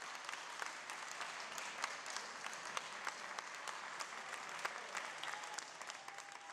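Audience applauding, a steady patter of many hands clapping that eases slightly near the end.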